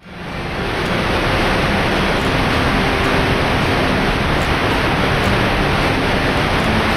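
Waterfall rushing: a loud, steady roar of falling water that fades in over the first half second.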